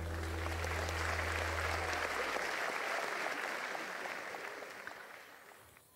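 Concert audience applauding in a large hall as a song ends, the last low note of the backing music dying away in the first two seconds. The clapping fades out gradually toward the end.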